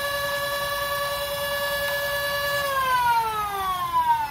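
The Nerf Stryfe's flywheel motors (MTB Neo Rhino motors driving Hooligan flywheels) are revved to full speed, giving a steady high whine. About two and a half seconds in, the rev trigger is let go and the flywheels coast down, the whine falling steadily in pitch.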